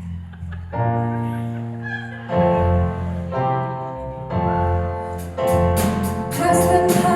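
Instrumental song intro: a bass line under piano chords, with drums and cymbals coming in about five seconds in.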